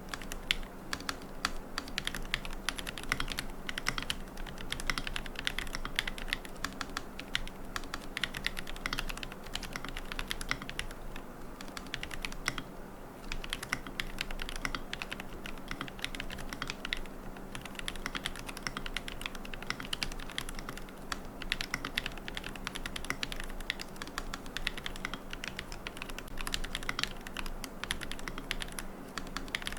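Continuous fast typing on a QK75N mechanical keyboard with Gateron Moon Landing switches, a carbon plate, no foam and MilkyWay Poker keycaps: a dense run of key clacks that thins briefly about twelve seconds in. A faint steady low hum runs underneath.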